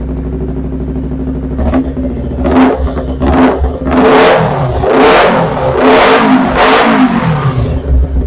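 Honda CBR250RR's parallel-twin engine on a Tritek aftermarket exhaust, idling and then blipped in a quick run of about seven revs, each dropping back toward idle, before it settles to idle near the end. Loud.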